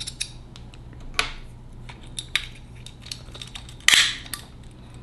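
Metal parts of an aluminium DL-44 blaster replica kit clicking and clinking as they are handled and fitted together, with a few sharper clacks, the loudest about four seconds in.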